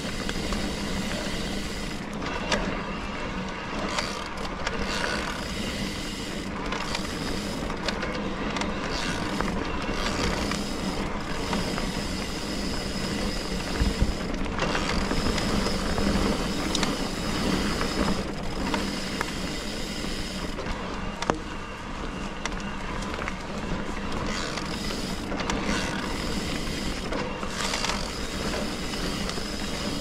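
Electric mountain bike (Trek Rail 7) being ridden on a dirt trail: tyres rolling and the bike rattling and knocking over bumps, with a high steady whine that comes and goes.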